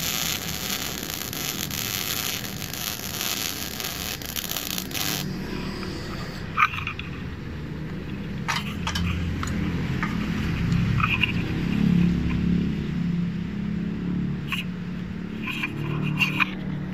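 Gas-shielded MIG welding arc from a Mailtank MIG 200A welder, crackling and hissing steadily, then cutting off suddenly about five seconds in. After that only a low rumble and a few scattered clicks remain.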